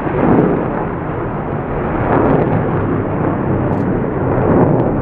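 B-1B Lancer's four General Electric F101 afterburning turbofans running in afterburner as the bomber climbs away: a loud, steady jet roar, heaviest in the low end, swelling and easing slightly a couple of times.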